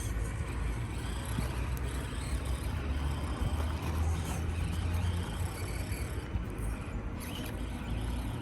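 Axial SCX24 1/24-scale RC crawler's small electric motor and gears whirring as it crawls over rough ground, over a steady low rumble.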